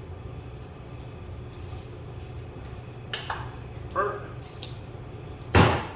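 Handling noises over a steady low hum: a knock about three seconds in, a brief metallic clank with a short ring about a second later, then a loud sharp bang near the end.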